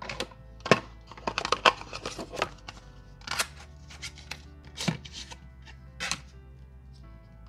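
Small cardboard box and paper inner sleeve being handled: a run of quick taps, clicks and rustles, thickest in the first two and a half seconds, with a few more single ones later. Soft background music plays under it.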